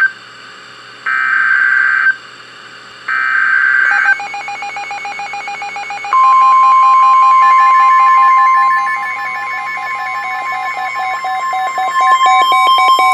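Emergency Alert System broadcast on NOAA Weather Radio for a severe thunderstorm warning. Two screeching digital SAME header bursts, about a second each with a second's gap, are followed by a fast, even electronic beeping. About six seconds in, the steady 1050 Hz weather radio warning alarm tone starts and holds loud, with the beeping going on underneath.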